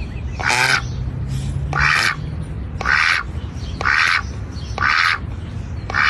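A duck quacking about once a second, six quacks in a row, over a steady low background rumble.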